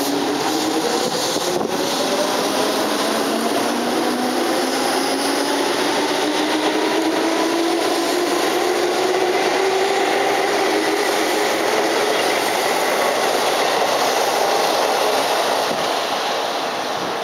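Keihan 2600-series electric commuter train pulling out of the station: traction motor whine rising steadily in pitch as it accelerates, over the rumble of the wheels on the rails. It grows fainter near the end as the train draws away.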